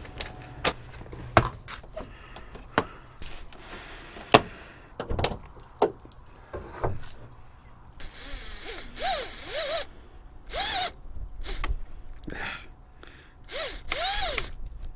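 Sharp taps and knocks of a cardboard box and foam packing being handled. From about eight seconds in, a Milwaukee cordless driver runs in four or five short trigger pulls, its whine rising and falling with each, backing out the screws that hold a stock headlight.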